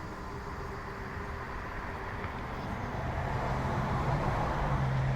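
Craftsman bench grinder's electric motor running with a steady hum, growing louder about three seconds in.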